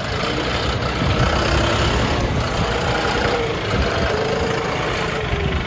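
John Deere 5310 tractor's three-cylinder common-rail diesel engine running steadily while the tractor wades through muddy water.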